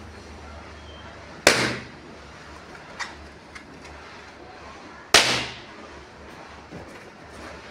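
Two latex balloons popping about three and a half seconds apart, each a sharp bang with a short ringing tail: first a round balloon, then a long modelling balloon. A few faint clicks from handling the rubber come between them.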